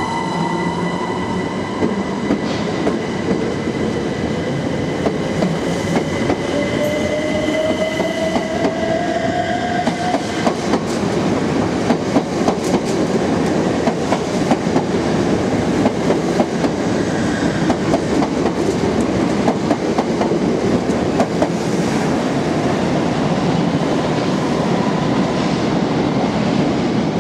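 Electric multiple-unit trains running along the platform. The traction motors give a whine that rises in pitch over the first ten seconds as a train pulls away, then a steady rumble follows with rapid clicking of wheels over rail joints as the carriages pass.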